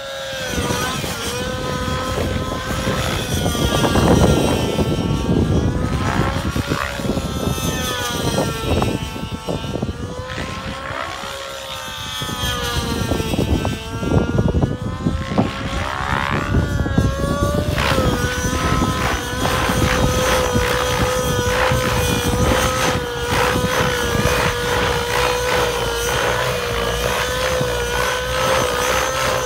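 Nitro-engined Align T-Rex 700XN radio-controlled helicopter flying aerobatics: the glow engine and rotors hold one steady note, which sweeps up and down in pitch several times as the helicopter swoops past. About two-thirds in, the note settles and stays steady.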